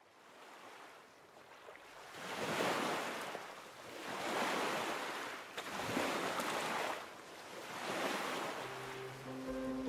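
Sea waves washing in and drawing back, fading in from silence and swelling four times. Sustained music notes come in near the end.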